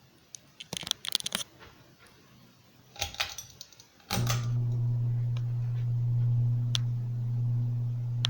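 Ceiling fan being switched on: a few clicks and rattles, then about four seconds in the motor starts with a steady low hum that carries on.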